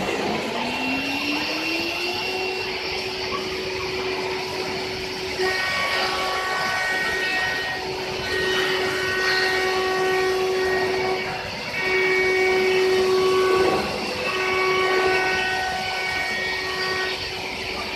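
CNC router's HQD 9 kW automatic-tool-change spindle spinning up with a rising whine over the first two seconds, then holding a steady high hum at speed. From about five seconds in, several higher whining tones start and stop every second or two over it.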